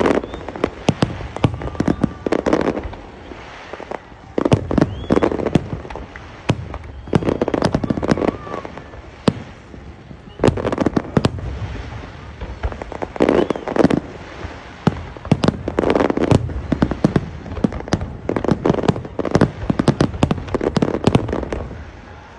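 Aerial fireworks display: rapid shell bursts and crackling bangs, coming in dense clusters every couple of seconds.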